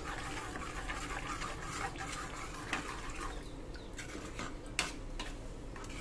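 Metal spoon stirring thick tomato-onion gravy in a steel pan, a faint wet scraping with a few light clicks of the spoon against the pan.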